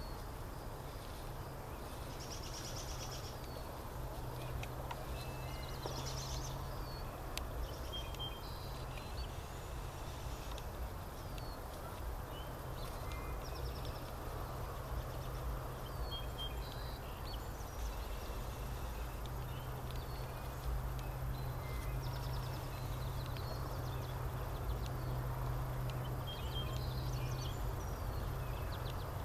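Meadow ambience: scattered short bird chirps and calls over a steady low hum.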